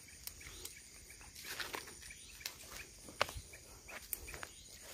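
Footsteps crunching through dry brush and twigs on a steep bank, with scattered snaps and rustles, the sharpest snap about three seconds in. Insects trill steadily in the background.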